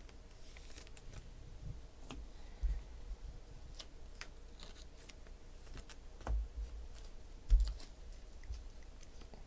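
Light clicks and taps of trading cards in plastic sleeves and holders being handled on a table, with a few dull knocks on the tabletop, the loudest about seven and a half seconds in.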